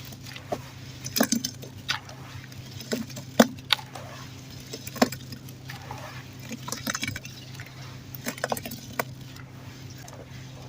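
Dirt being crumbled: irregular crunches and sharp snaps of breaking chunks, the loudest about a third of the way in and at the middle, with a steady low hum underneath.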